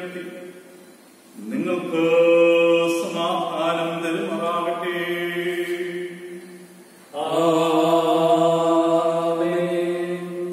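A man's voice chanting a blessing on long, steadily held notes, in two phrases; the second begins about seven seconds in.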